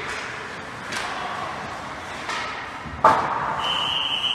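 Ice hockey play in a rink: sticks and puck clacking over skate noise, with one loud sharp crack about three seconds in, like a shot hitting the boards. A referee's whistle then sounds as a steady high blast near the end.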